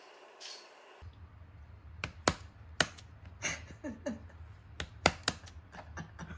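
A run of sharp, irregular clicks and taps over a low steady hum, starting about a second in.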